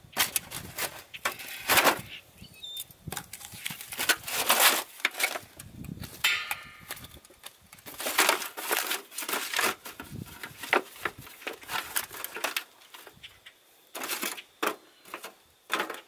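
Charcoal briquettes being handled and shifted in a thin disposable aluminum roasting pan: irregular crinkling of the foil pan and scrapes and knocks of briquettes against it, with short pauses.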